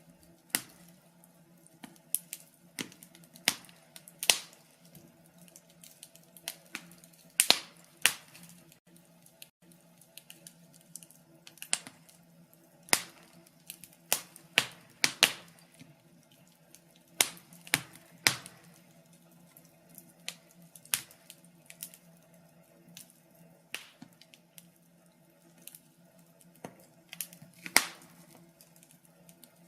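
Wood fire crackling in a fireplace: irregular sharp pops and snaps, some single and some in quick clusters, the loudest about seven seconds in and near the end. A faint steady low hum runs underneath.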